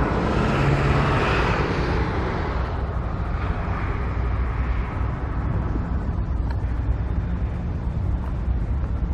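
Traffic noise: a vehicle passing, loudest in the first couple of seconds and then fading, over a steady low rumble.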